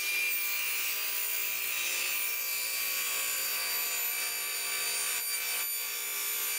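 Table saw running with its blade cutting down into the end of an upright board, a bridle-joint slot cut, making a steady whine.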